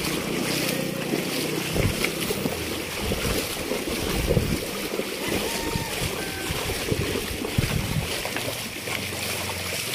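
Wading footsteps splashing through shallow surf, with water sloshing around a plastic tub pulled through it and wind on the microphone.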